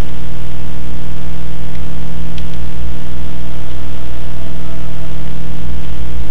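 Loud, steady low electrical hum of mains hum picked up by the recording microphone, with two faint clicks around two seconds in.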